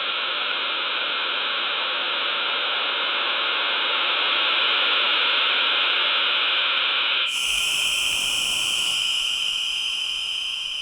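A loud, steady rushing hiss with no low rumble. About seven seconds in it switches abruptly to a thinner, brighter hiss carrying a steady whistling tone.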